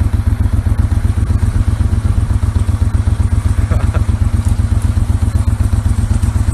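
A small boat's motor idling close by, a steady, fast, even low throb.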